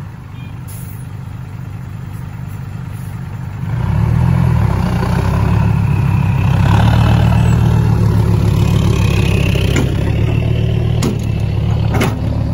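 Diesel engine of a loaded dump truck running, growing louder about four seconds in as the truck pulls away, with a hydraulic excavator's engine working close by. A few sharp knocks come near the end.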